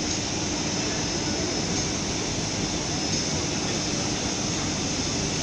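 Steady running noise of a Suntech roll-to-roll fabric relaxing machine together with the hall's large wall exhaust fans: an even mechanical drone with a faint constant hum and hiss.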